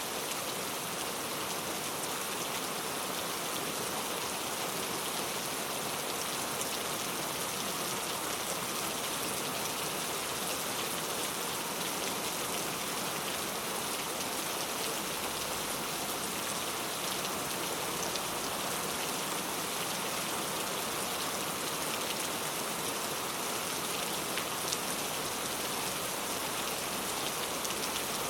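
Steady rain falling on a surface, with many small drop ticks and no thunder.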